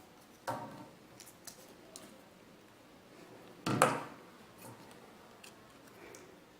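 Scissors snipping, two sharp cuts about three seconds apart, with faint clicks of craft materials being handled between them.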